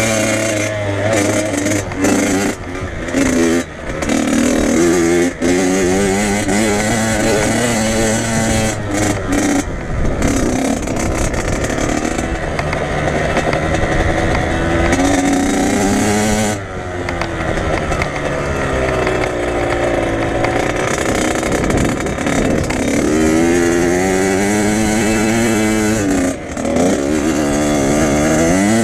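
Dirt bike engine being ridden hard, its pitch climbing and falling again and again as it revs through the gears. The throttle is chopped several times, most sharply about two-thirds of the way in and again near the end.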